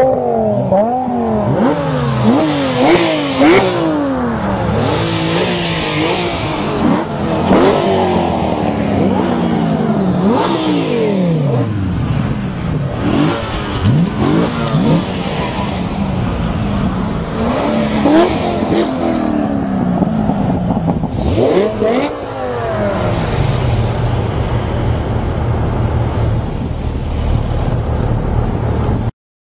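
Sports car engines revving and accelerating past one after another, the pitch climbing and dropping back with each gear change. The sound cuts off suddenly near the end.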